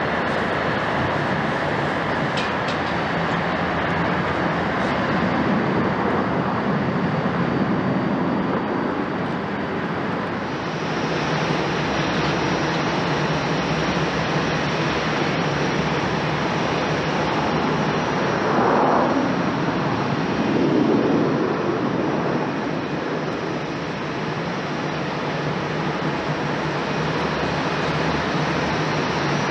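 Jet airliner engines at a distance: a steady roar. About ten seconds in the sound shifts to a Delta Air Lines Airbus A330neo climbing out after takeoff, its Rolls-Royce Trent 7000 engines swelling briefly a little later.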